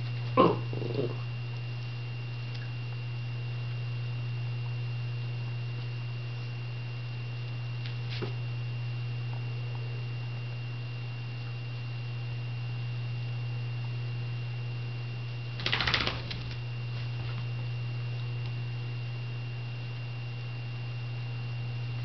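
Dogs, a schipperke and an Italian greyhound, over a steady low hum: a short dog vocalization about half a second in, and a brief noisy scuffle with clicks about sixteen seconds in.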